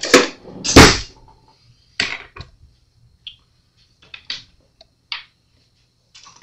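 Knocks and clicks of objects being handled on a wooden workbench: two loud knocks in the first second, two more about two seconds in, then scattered lighter taps and clicks.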